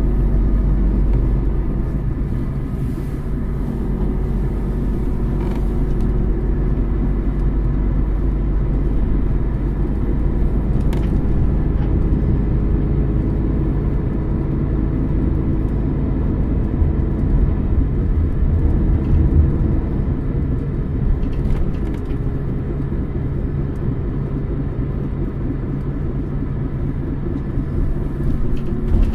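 Mercedes-Benz O550 Integro Ü coach's diesel engine idling steadily while the bus stands still.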